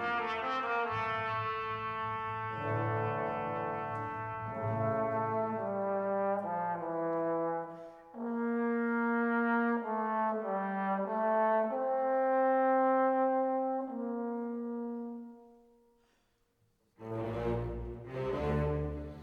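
Background instrumental music of slow, long held notes that fades out about fifteen seconds in. After a second of near silence, another piece begins near the end.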